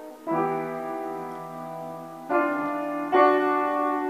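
Piano chords played slowly: three chords struck about a second or two apart, each held and left ringing as it fades.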